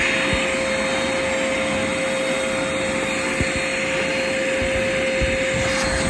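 Wet/dry shop vacuum running steadily, a rush of air with a constant high whine, as it sucks debris out of an air handler's condensate drain pan. A few light knocks sound under it.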